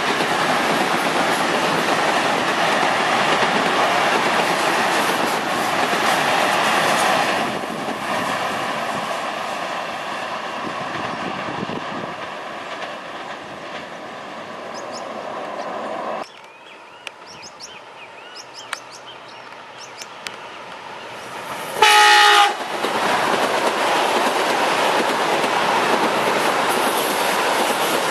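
Electric commuter trains passing close by, the wheels rumbling and clicking over the rail joints. Near the end of a quieter stretch, a train horn sounds one short, loud blast, and then another train rushes past.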